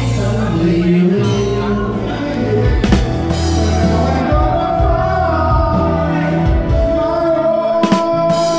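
Karaoke: a man singing into a microphone over a loud backing track played through the bar's PA speakers.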